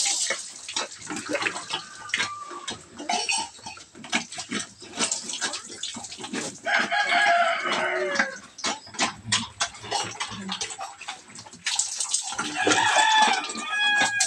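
Water scooped with a dipper and poured over a sow, splashing onto a concrete floor, while a rooster crows twice: once about halfway through, its call falling at the end, and again near the end.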